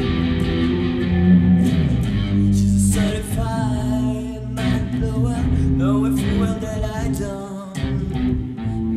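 Rock song music: an electric guitar and bass play an instrumental passage, with a wavering, bending melody line entering about three seconds in.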